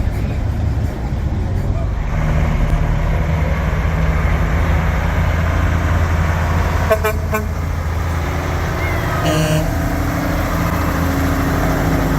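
Heavy truck engine running steadily as it pulls past, growing louder about two seconds in. Two short horn toots come about seven seconds in, and another brief horn blast follows a couple of seconds later.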